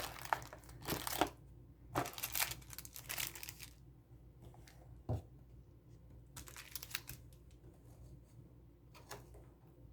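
Packaging being handled and cleared away during an unboxing: quiet rustling and crinkling in several short spells, with one short knock about five seconds in.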